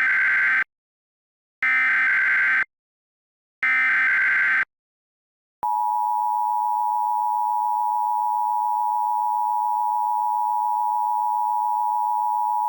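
Emergency Alert System alert tones: three one-second bursts of SAME header data a second apart, then, about five and a half seconds in, the steady two-tone EAS attention signal. Together they signal the start of an emergency alert broadcast.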